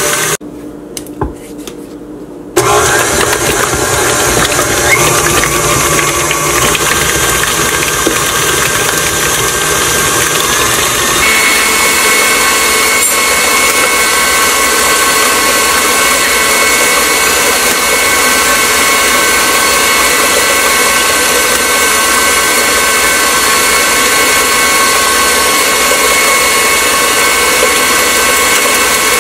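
KitchenAid stand mixer running steadily, its beater creaming thick cheesecake batter of cream cheese and sugar in a stainless steel bowl. The motor sound drops away for about two seconds near the start, then comes back, and its steady whine changes to a higher tone about eleven seconds in.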